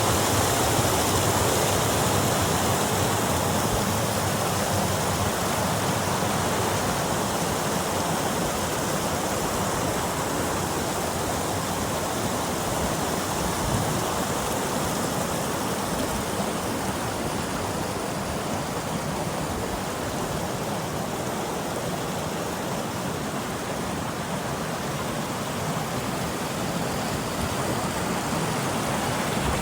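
Small waterfall on a hill stream, water falling and splashing in a steady, even rush.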